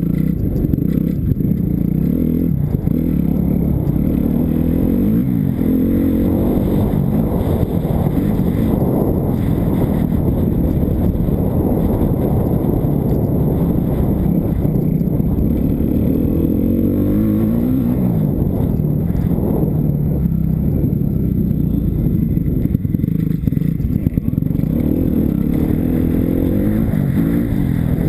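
Kawasaki KX250F's four-stroke single-cylinder engine under way, its pitch rising and falling again and again as it is revved up and backed off, over a steady low rumble.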